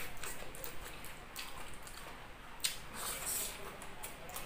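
Wet chewing and lip smacks of a person eating, irregular short clicks and squishes, with a few louder smacks in the second half.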